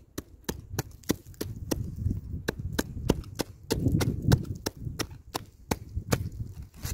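Knife blade stabbing again and again into lake ice, chipping out a hole through it: sharp ice-chipping strikes, about three or four a second.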